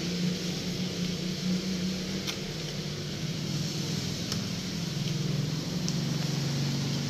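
A steady low motor hum under a constant hiss, its pitch sagging slightly about five seconds in, with a few faint ticks.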